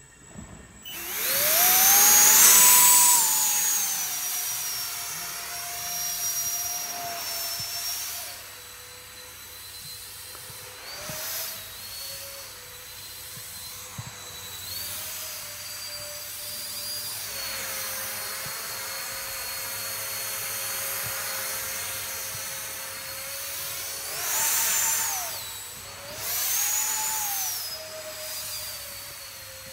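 Electric ducted fan of a scratch-built RC jet whining at high pitch. It spools up sharply about a second in to its loudest, then holds a steady lower pitch and drops again about eight seconds in, with several brief throttle surges later on, the strongest two near the end.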